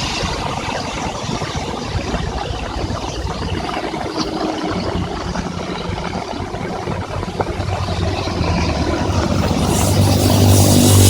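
Motor traffic passing on a rain-wet highway over a steady wash of rain. Engines run by, and near the end a vehicle passes close, with a loud rushing hiss of tyres on the wet road.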